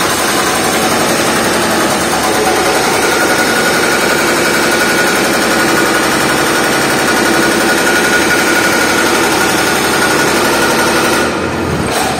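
Excavator-mounted hydraulic breaker hammering its chisel into a concrete block: a rapid, steady stream of blows that stops near the end.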